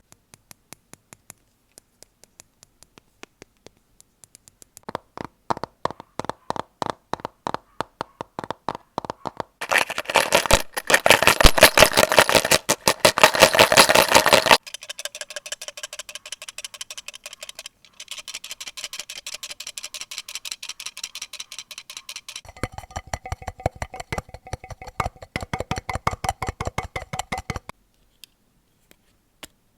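A series of close-miked ASMR triggers, one after another: runs of rapid clicking and tapping on different objects. It is sparse at first, becomes a steady rhythm, peaks in a loud, dense stretch about a third of the way in, changes to a softer, higher ticking, then a run of deeper clicks, and stops shortly before the end.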